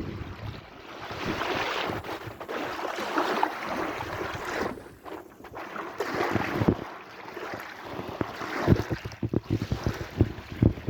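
Sea waves washing in and drawing back, swelling and fading every few seconds. Wind buffets the microphone with short low thumps, thickest near the end.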